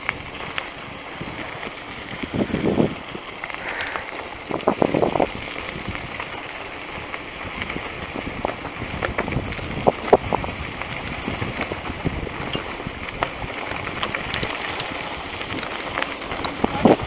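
Caloi bicycle rolling along an unpaved dirt road: steady tyre noise on the gravel with scattered small rattles and clicks, a few louder bumps, and wind on the microphone.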